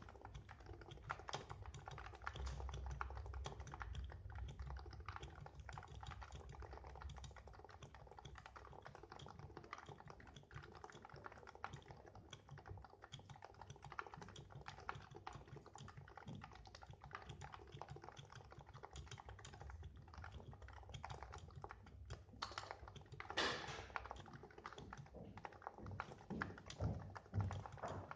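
Continuous typing on a Cooler Master Novatouch keyboard with Topre switches. It is mounted in a Norbauer CNC aluminium case, fitted with Hypersphere silencing rings, lubed with Krytox and capped with GMK Carbon keycaps. The keystrokes come thick and fast, with a few louder strokes toward the end.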